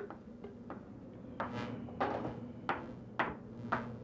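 Kitchen knife chopping fresh cilantro on a cutting board: a series of about five knocks, roughly one every half second, starting about a second and a half in.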